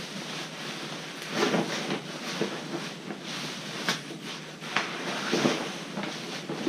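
Packaging wrap being unwound and handled: irregular rustling and crinkling, with a couple of sharp snaps about four and five seconds in.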